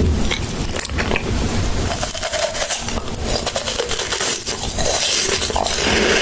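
Close-up crunching and crackling of a Kinder Bueno's crisp wafer being bitten and chewed, with many short crisp clicks.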